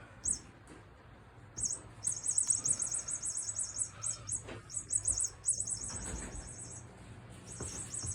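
Toy mouse giving high-pitched, rapid squeaky chirps: a couple of short chirps at first, then near-continuous trilling runs from under two seconds in, with a short break a little after five seconds. A few soft knocks from the toy being handled sound underneath.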